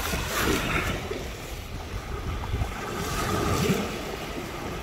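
Wind buffeting the microphone over the wash of waves on the shore.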